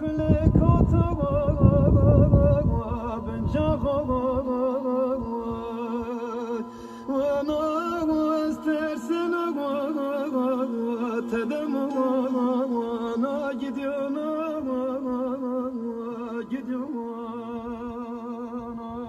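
Music with a solo voice singing a slow, ornamented melody with heavy vibrato, the notes gliding from one to the next. A loud low rumble covers the first few seconds.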